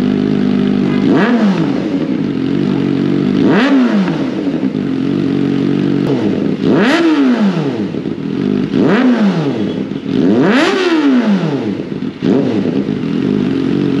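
Kawasaki ZX-4RR's 399 cc inline-four idling through an aftermarket slip-on muffler with a carbon tip. The throttle is blipped five times, each rev climbing quickly and falling back to idle.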